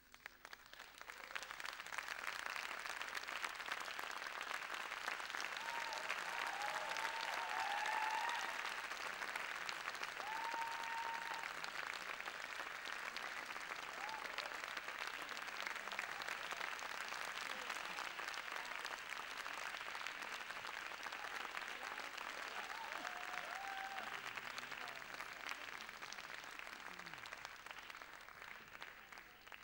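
Theatre audience applauding, the clapping starting about a second in and dying away near the end, with a few short cheering calls from the audience along the way.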